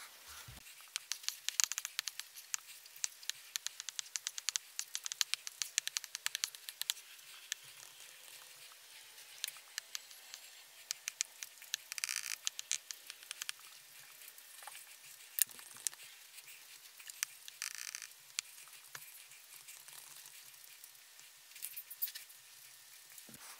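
Stylus tip tapping on an iPad's glass screen: many light, quick clicks in irregular runs, with a few short scratchy strokes as it writes.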